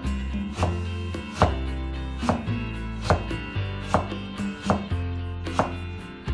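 Kitchen knife cutting carrot into thin strips on a wooden cutting board: a sharp knock of the blade on the board about every 0.8 seconds, with steady background music underneath.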